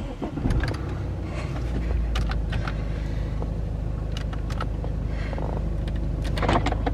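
A car's diesel engine started by push button: a brief crank about half a second in, then a steady low idle. Several sharp clicks of dashboard buttons being pressed sound over the idle.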